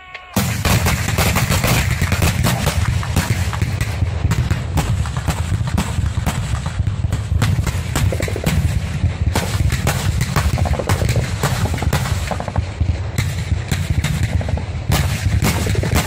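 Military heavy weapons firing in a sustained barrage during a live-fire exercise: a dense, unbroken run of rapid bangs over a constant low rumble, starting suddenly just after the start.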